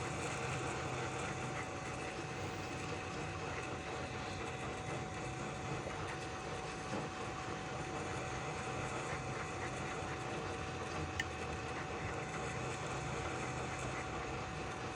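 Hot-air rework station blowing steadily during a motherboard reflow: an even hiss of air with a faint steady whine running through it.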